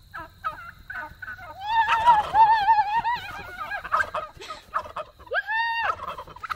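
Turkey gobbling: a loud wavering call about a second and a half long, with short calls about four a second before it and a single held call that rises and falls near the end.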